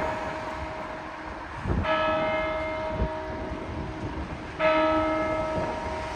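A single church bell tolling: two strikes about three seconds apart, each with the same clear pitch that rings on and fades before the next stroke. A couple of short low thumps are heard between the strokes.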